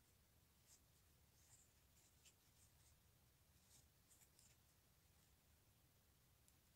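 Near silence, with a few faint, soft scratches of yarn being drawn through stitches with a crochet hook.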